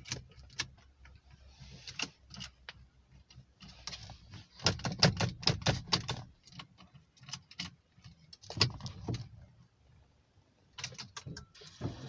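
Car keys jangling and clicking as the key is fitted and turned in the Peugeot 407's ignition to switch it on. The clicks and knocks come thickest about five seconds in, then in shorter clusters near the end.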